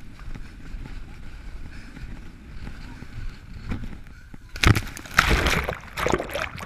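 Wind and water rushing past an inflatable tube towed at speed, a low steady rumble. About four and a half seconds in, a loud crash of water as the tube tips over and the rider goes in, followed by churning water and splashes.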